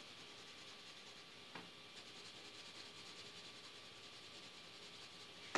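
2B graphite pencil shading on drawing paper: a faint, steady scratching, with a small tick about one and a half seconds in.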